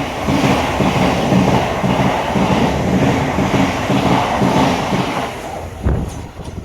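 A train running through the station at speed without stopping. Its wheels clatter in a steady rhythm over the rail. There is a sharp knock near the end, and the noise fades as the train passes.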